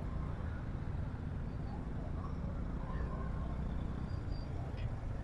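Steady low rumble of engines and road traffic in slow-moving traffic.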